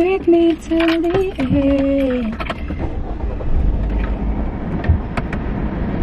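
A woman's voice singing a few held, gliding notes for about two seconds. Then comes a low rumble with scattered knocks and rustling inside a car.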